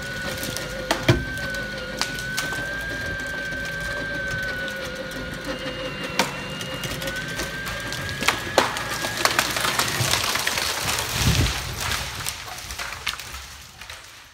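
Pine tree being pulled over by a cable and uprooting: wood and roots cracking and splintering in a string of sharp snaps, with a heavy thud about eleven seconds in. A steady whine runs underneath for most of it.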